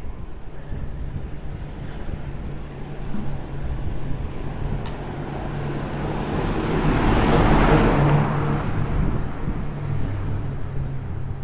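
A motor vehicle passing on the road, its noise swelling to a peak about seven and a half seconds in and then fading, over a steady low traffic hum.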